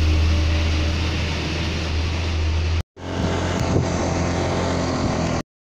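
Wind buffeting the microphone with a heavy, steady low rumble. After a brief dropout near the middle it goes on as a motorcycle ride, with the engine and rushing wind, then cuts off to silence about five and a half seconds in.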